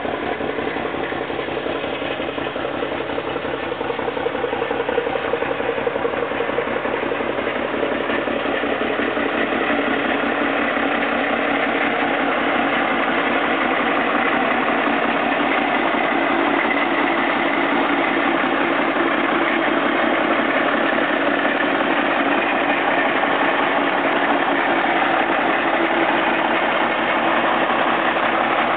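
1956 Kenworth LW523 log truck's engine idling steadily through its newly rerouted exhaust, growing a little louder after the first few seconds.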